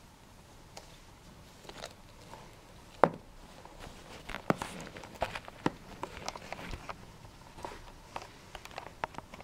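Pet grooming brush being worked against a cat's fur and a cushion while the cat paws at it: scattered clicks, taps and short rustles, one sharp knock about three seconds in, and clicks coming thicker in the second half.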